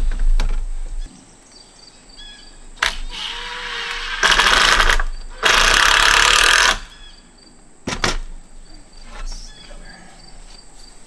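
Cordless impact driver driving screws into wooden roof framing: two long hammering bursts, the first after a short spin-up, with a few knocks of lumber around them.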